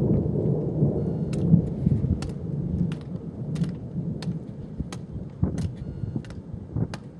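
Thunder rolling in a deep rumble that fades away about three seconds in, with scattered sharp ticks over it.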